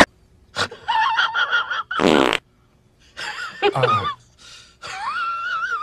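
Fart sound effects: a series of short squeaky and buzzy blasts, the loudest and buzziest about two seconds in, ending in a long wavering squeak near the end.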